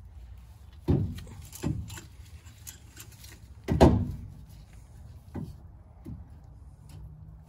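A heavy steel differential carrier with its bolted-on ring gear clunks and knocks against the Dana 44 axle housing as it is worked into place by hand. There are several knocks, the loudest about four seconds in.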